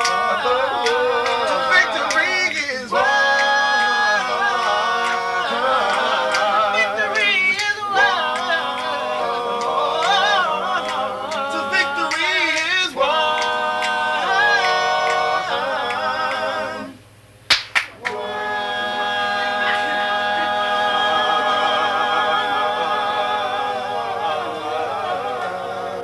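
Four-man male vocal group singing a cappella in close harmony, with melismatic runs and vibrato. About 17 seconds in the singing stops briefly with two sharp clicks, then the voices come back in on a final chord held for several seconds, fading at the end.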